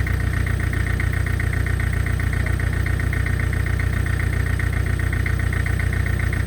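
Excavator's diesel engine running steadily at a constant speed, with an even, fast pulsing throb.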